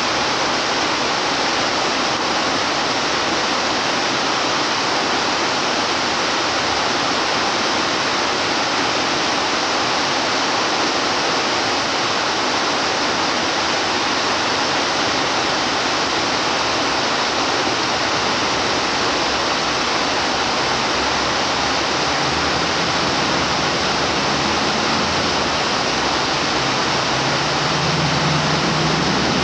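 Waterfall pouring in a wide curtain into a rocky pool: a steady, loud rush of water, growing fuller and deeper over the last several seconds.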